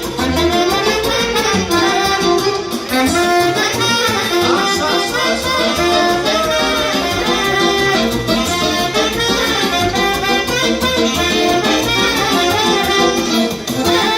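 Instrumental break in a Transylvanian Romanian folk song: a band plays a busy lead melody over chordal accompaniment and a steady bass beat, with no singing.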